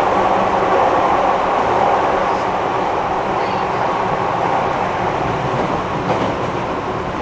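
JR East 205 series electric commuter train running, heard from inside the passenger car: a steady rumble and rolling noise of wheels on rail, easing slightly toward the end.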